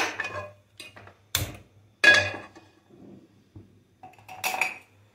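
Cookware clanking: pans and utensils being handled on a gas stove. There are a handful of sharp knocks, each ringing briefly, and the loudest comes about two seconds in.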